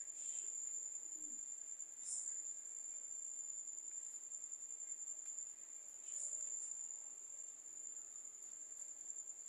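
A steady high-pitched insect trill, with a few faint soft knocks about two seconds in and again around six seconds in.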